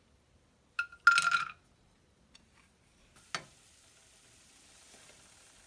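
Metal utensil clinks with a brief ringing tone about a second in as cashews go into the pan of melted ghee, a sharp tap a couple of seconds later, then faint sizzling as the cashews start to fry in the hot ghee.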